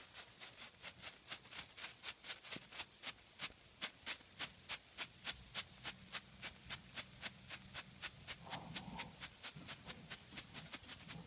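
Black Cat Magnum Flasher strobe firework popping in a steady rhythm, about four sharp pops a second, each pop coming with a bright flash.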